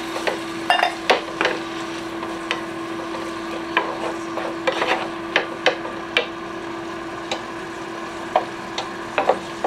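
Vegetable and tomato mixture sizzling in nonstick skillets while a wooden spoon stirs and scrapes it, with frequent short knocks and clicks of the spoon against the pan. A steady hum runs underneath.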